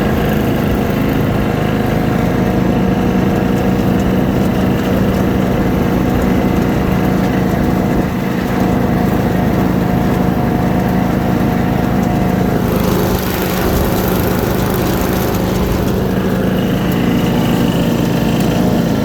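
Bolens rear-engine riding lawn mower running steadily under way, its engine turning the spinning cutting deck.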